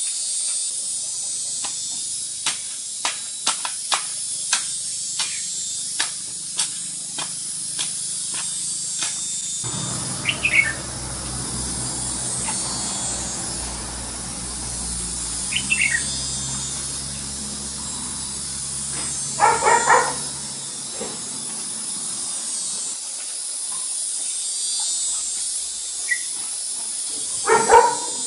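A garden hoe chops into soil with short strikes about twice a second for the first nine seconds, over a steady high-pitched hiss. A low hum comes in about ten seconds in and stops about ten seconds later, with a few louder scrapes or knocks near the middle and the end.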